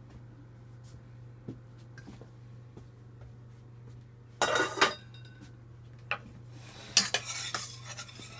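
Metal spoon and stainless steel saucepan clattering, with two loud hits about halfway through, then the spoon clinking and scraping against the pot as tomato sauce is stirred near the end. A low steady hum runs underneath.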